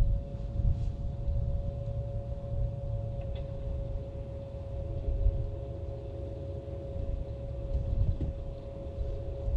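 Wind buffeting the microphone in gusty low rumbles, over a steady, unbroken hum from the bass boat's bow-mounted electric trolling motor.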